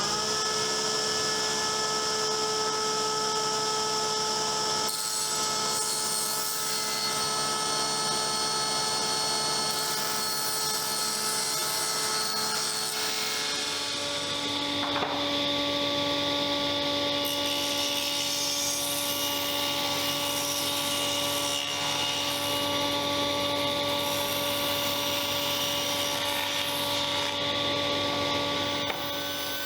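Electric power tool motor running at a steady speed with a whine. The tone changes about halfway through.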